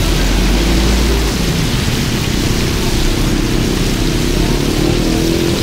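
Hot oil sizzling steadily as street food deep-fries, a dense even hiss. A low rumble sits under it for the first second or so.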